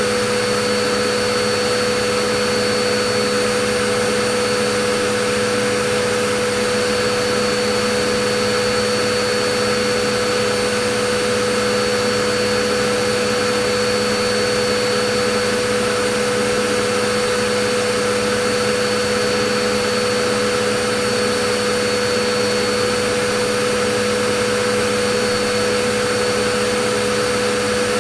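Vacuum cleaner running steadily: an even rushing noise with a constant motor whine.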